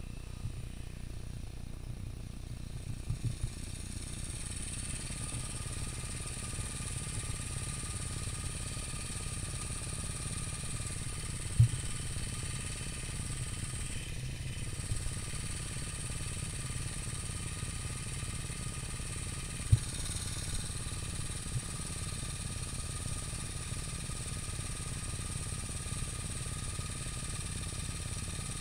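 ATV engines running steadily at low speed with no revving, with a faint steady whine over the rumble. Two sharp knocks stand out, about twelve seconds in and again about eight seconds later.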